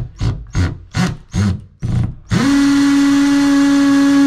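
Cordless drill, its trigger pulsed in about six quick short bursts, then run steadily at speed for about two seconds.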